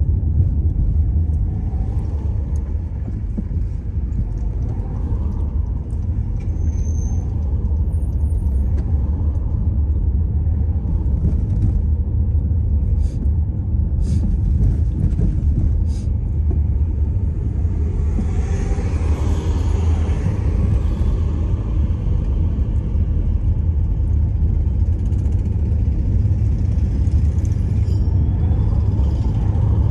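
Car driving on city streets: a steady low rumble of road and engine noise, with a louder rush of traffic noise swelling and fading about two-thirds of the way through.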